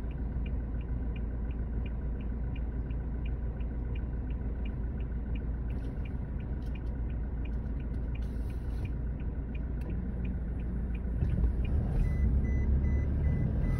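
Cabin noise of a vehicle driving on a rough dirt track: a steady low engine and road rumble, with a regular high ticking about three times a second. Near the end the ticking stops, the rumble grows louder, and a rapid high beeping starts.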